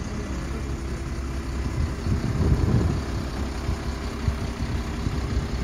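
Road sweeper truck running steadily with a low engine drone, swelling louder briefly about two seconds in.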